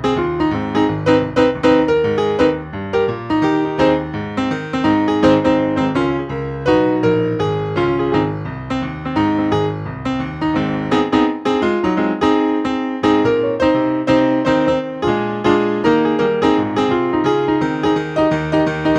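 Solo piano playing a postlude: a flowing run of notes over sustained chords.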